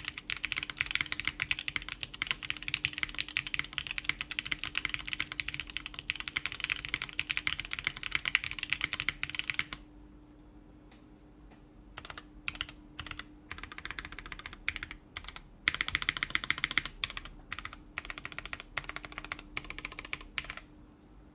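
Typing on a Plywrks Spyder TKL mechanical keyboard, o-ring mounted, with factory-lubed Gateron Khonsu switches, GMK keycaps and a polypropylene plate. A fast, dense run of keystrokes stops a little under halfway. Short bursts and single key presses with pauses between them follow.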